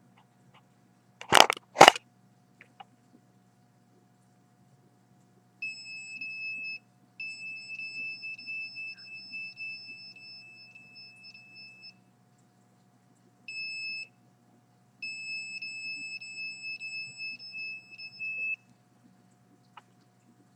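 Electronic alarm sounding a steady high-pitched tone, on and off in four stretches of half a second to five seconds, starting about five and a half seconds in. Two loud clicks come about a second and a half in.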